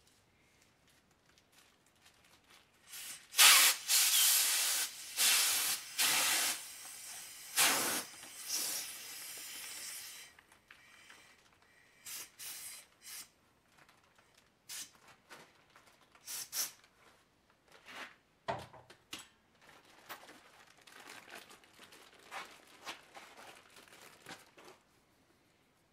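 Large clear plastic bag being handled and crinkled, with a loud hissing rush of several seconds starting about three seconds in, then scattered rustles and clicks.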